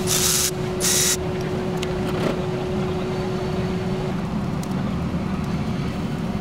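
Power ratchet running in two short bursts in the first second as it undoes fasteners on a Land Rover engine being removed. After that, a steady low hum with a faint steady tone that stops about four seconds in.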